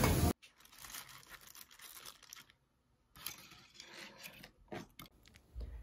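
Faint dry rustling and scraping of a dried rose bouquet being handled on a board, with a few light clicks.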